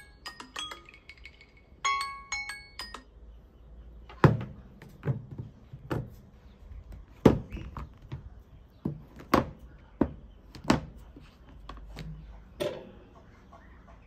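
A phone's alarm chime melody plays a few notes and stops about three seconds in. Then comes a run of about ten sharp knocks as smartphones are turned over and set face down on a wooden table.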